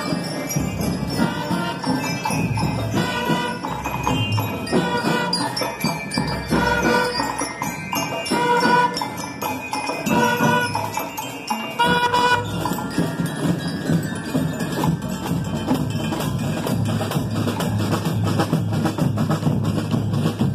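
School marching band: bell lyres ring out a melody over snare and bass drums. About twelve seconds in the melody stops and the drums play on alone, with dense, rapid strokes.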